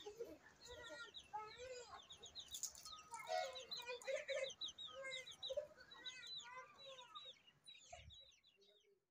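Faint bird calls: many quick, short chirping notes mixed with lower clucking calls, thinning out near the end.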